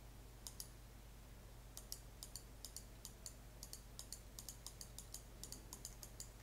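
Faint computer mouse button clicks, several a second in quick irregular runs, as the points of a jagged polygon are clicked in one after another.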